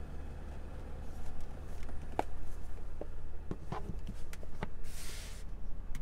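Handling noise from filming inside a car cabin: a few sharp clicks and knocks about two to five seconds in, and a brief rustle near the end, over a steady low rumble.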